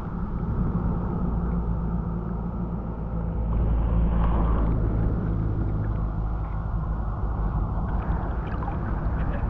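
Shallow river water flowing around a half-submerged camera, heard as a steady low rumble with gurgling that swells a little about four seconds in.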